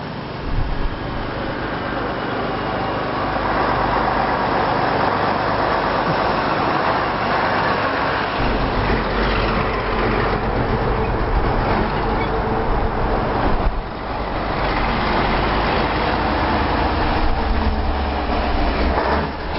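Diesel engines of old heavy trucks running as the lorries drive past one after another, a steady deep rumble that grows louder about eight seconds in.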